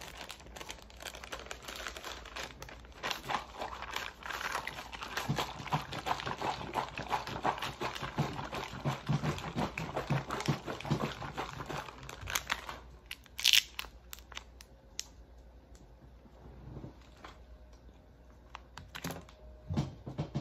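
Plastic MRE packaging crinkling and rustling as it is handled, dense for about twelve seconds, then one short, sharp crackle partway through and a quieter stretch with a few light clicks.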